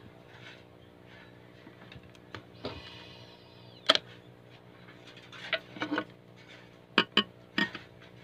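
A few sharp clicks and knocks over a steady low hum. The loudest click comes about four seconds in, and three come in quick succession near the end.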